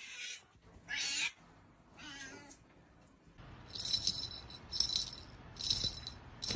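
Domestic cat meowing a few times, short cries about a second apart, followed by a run of short high-pitched bursts repeating roughly once a second.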